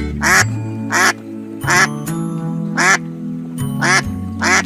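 Duck quacking, a string of short loud quacks about once a second, over background music with held notes.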